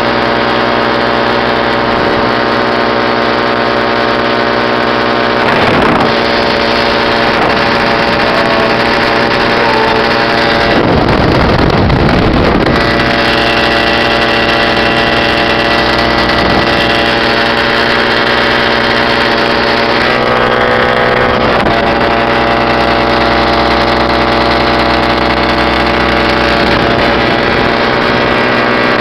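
Radne Raket 120 two-stroke paramotor engine running steadily in flight, with its propeller. Wind buffets the microphone, strongest about five seconds in and again around eleven to thirteen seconds in.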